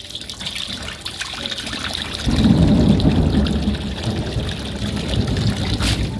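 Water running in to rinse sliced coconut, washing out the cloudy starch. The flow turns heavier and fuller about two seconds in.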